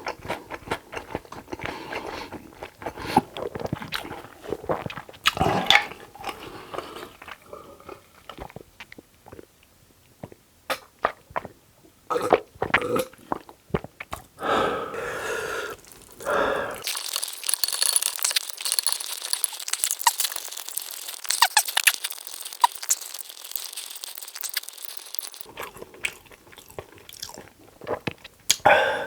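Close-miked eating: a man chewing and biting food with wet smacks and sharp clicks. About halfway through there is a stretch of thin, hissy sound lasting several seconds.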